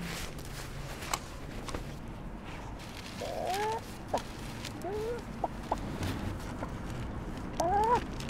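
A chicken clucking: three short rising calls, about three seconds in, around five seconds in and near the end, with fabric rustling and a few small clicks as a jacket is handled.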